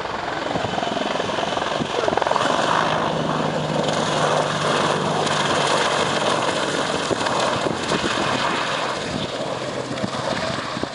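AH-64 Apache attack helicopter passing overhead: rotor and engine noise that swells about two seconds in and stays loud for several seconds, with a low steady hum in it for a while, then eases off near the end.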